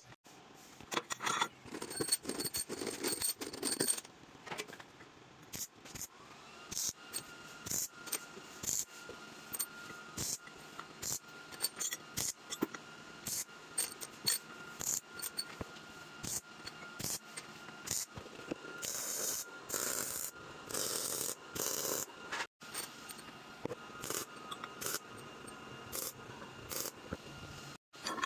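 Metal parts being handled: repeated sharp clinks and short scrapes of metal on metal, with a faint steady tone underneath for most of the time.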